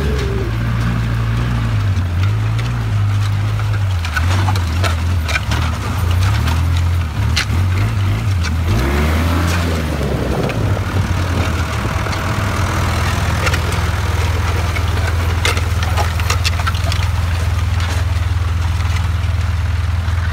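John Deere 2555 tractor's diesel engine running while pulling a disc harrow. Its pitch rises and falls through the first half, then holds steady. Scattered clanks and rattles run over it.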